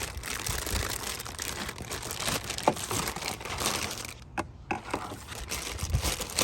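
Hard plastic being handled and worked: continuous crinkling and crackling with many small clicks, one sharper click a little under three seconds in and a brief pause past the middle.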